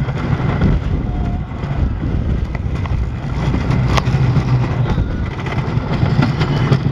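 Wooden roller coaster train rumbling and clattering along its wooden track at speed, with a sharp knock about four seconds in.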